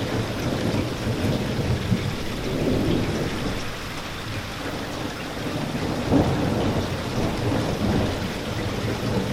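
Steady rain with a low, rolling rumble of thunder underneath, easing slightly for a moment and swelling again about six seconds in.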